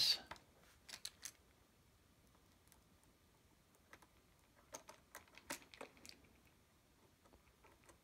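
Faint small clicks and taps of a precision screwdriver and plastic parts as the side brush is fitted back onto a Roomba 780's underside and its tiny screw is driven in: a couple of clicks about a second in, then a scattered run of them in the second half.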